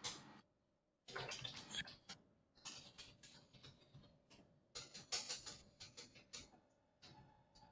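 Faint rapid clicking of computer keys being typed in quick bursts, with short pauses between the runs.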